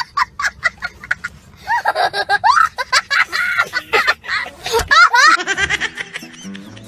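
A small child laughing hard in rapid, high-pitched bursts of giggles and squeals. A short piece of music comes in near the end.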